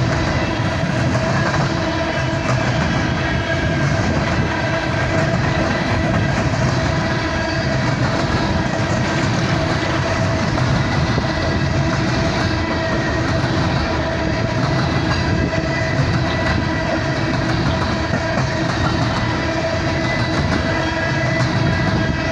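Long empty coal train rolling past: a steady, loud rumble of freight wheels on rail with clickety-clack, and steady high tones running through it.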